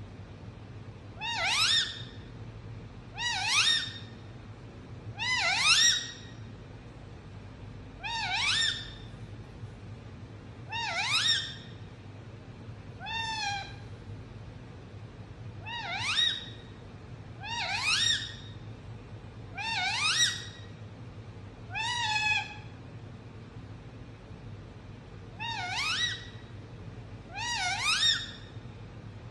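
Indian ringneck parrot giving a dozen short rising calls, one about every two seconds, each sweeping upward in pitch.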